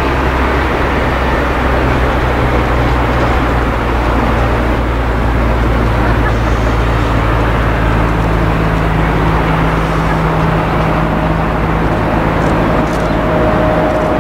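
Boeing 777 freighter's twin GE90 turbofans approaching to land: a steady jet roar, with a higher whine coming in about ten seconds in.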